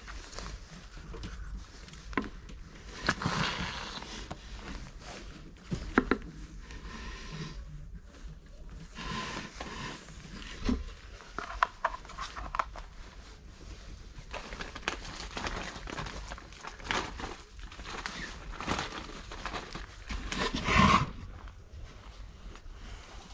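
Stray cats moving about close up on wooden boards: scattered paw steps, scrapes, knocks and rustles, with a louder rustle near the end.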